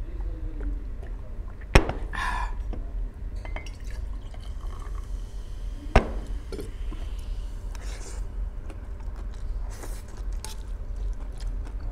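Drinking sounds from a ceramic mug, then a sharp knock just under two seconds in as the mug is set down on the table. A second sharp knock comes about six seconds in as a glass bottle is handled on the table, followed by a steel spoon scooping noodles from a steel plate.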